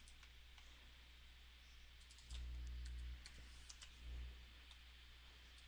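Near silence with faint, scattered clicks from computer input at a desk, and a brief low hum a little past two seconds in.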